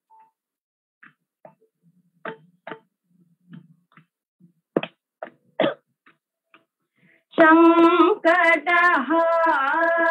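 Two female voices singing a Carnatic kriti in raga Saveri, coming in loud about seven seconds in on a long held note with an ornamental dip in pitch. Before that, only a few short scattered taps over near silence.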